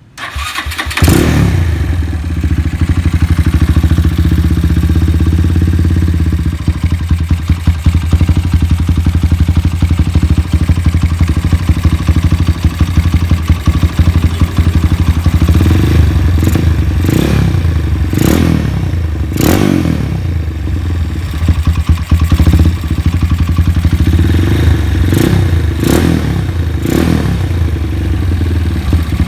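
Honda Tiger single-cylinder engine, bored up to 68 mm with a 68.2 mm stroke, idling steadily after it comes in about a second in. In the second half it is given several short throttle blips that rise and fall back to idle.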